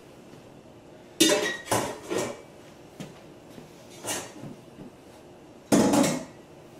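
Kitchenware clattering against a stainless-steel sink: a quick run of knocks about a second in, a few lighter knocks around three to four seconds, and the loudest clatter near the end.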